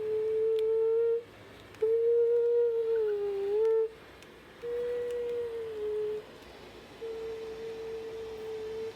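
A person humming four long, held notes with short pauses between them. The second note dips in pitch near its end and the third falls slightly.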